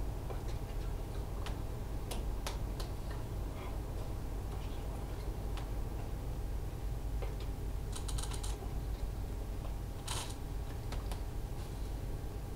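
Steady low room hum with scattered light clicks and taps, a short rattle about eight seconds in and a brief rustle about ten seconds in.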